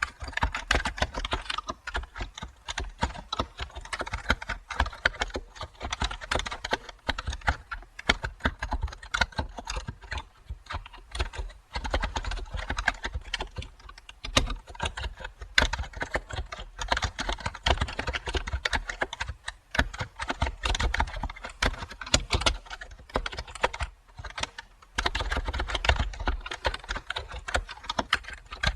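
Computer keyboard typing: a steady, irregular stream of key clicks, with a few short pauses and one denser flurry near the end.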